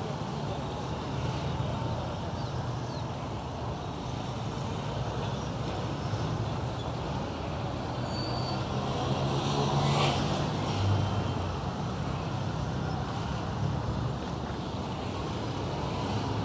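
Busy road traffic of motorcycle taxis and cars, many small engines running together as they pass. A louder vehicle goes by close about ten seconds in.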